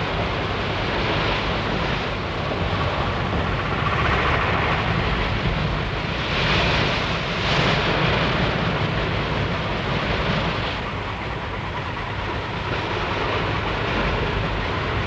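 Steady low rumble with a rushing wash of water alongside a wooden boat under way at sea. The wash swells several times, most strongly around the middle.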